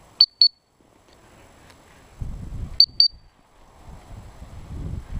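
A handler's dog whistle blown in two quick double pips, a second and a half apart: short, sharp, high pips of the kind used to signal a springer spaniel. Low rustling comes in between and after them.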